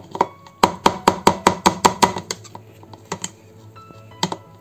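An immersion blender's shaft knocking against a plastic blender bowl: a quick run of sharp knocks, about five a second for over a second, then a few single knocks. Soft background music.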